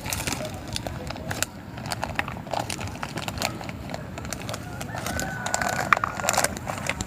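Irregular light clicks and taps of small cooking utensils being handled, with some rustling, over a steady low hiss.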